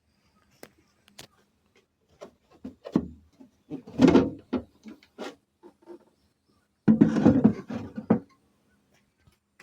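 Irregular knocks and clatter from an object being handled, with two louder rattling bursts about four and seven seconds in. No steady motor run is heard.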